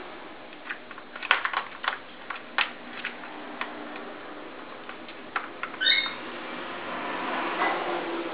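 Irregular light clicks and taps as a ferret plays at a plastic ball-track cat toy on a tile floor, the ball and the ferret's paws knocking against the plastic. A brief high squeak comes about six seconds in, then a soft rustling.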